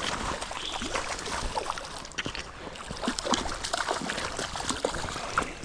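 Irregular splashing over the steady rush of a running stream, from a hooked brown trout thrashing at the surface as it is brought in.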